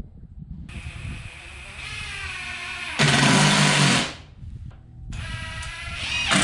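Cordless drill run twice in short bursts, its motor whine rising in pitch as it speeds up and then running at full speed, the loudest stretch about three seconds in and again near the end.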